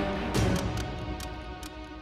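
Background music of sustained tones, fading gradually toward the end.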